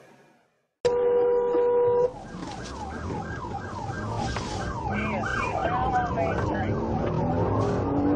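A loud steady electronic beep for about a second, then a police siren on a rapid yelp, sweeping up and down about three times a second over traffic noise and slowing to longer sweeps near the end.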